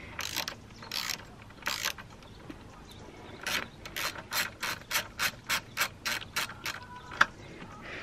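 Socket ratchet clicking as a bolt is wound into a motorcycle's rear brake caliper. A few separate strokes, then a quick even run of about four clicks a second, and one sharper click near the end.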